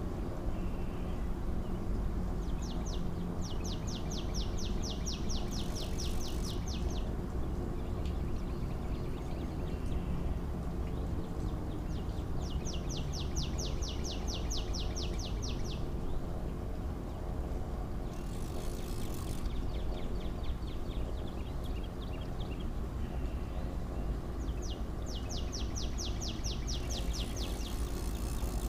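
A songbird repeating a rapid, even trill of high notes, three trills each lasting about three seconds, roughly ten seconds apart. Under it is a steady low rumble of wind and water.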